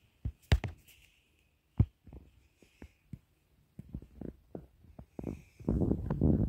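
Footsteps and handling noise from a handheld camera being walked across a tiled floor: irregular low thumps with a couple of sharp knocks in the first two seconds, building into a denser low rumble near the end.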